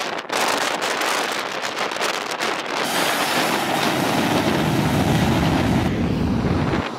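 Boeing 737's twin jet engines at high thrust at the runway end: a loud, steady rushing roar with a deep rumble that builds through the second half, the jet blast buffeting the microphone with wind.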